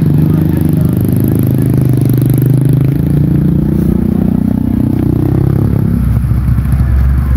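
Motorcycle engine running, its pitch rising slowly for several seconds and then dropping away about six seconds in.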